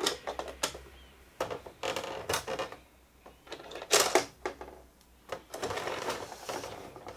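Hard plastic toy bus and toy parking garage clicking and knocking as a hand pushes the bus into the garage: irregular light clicks and rattles with short pauses between them.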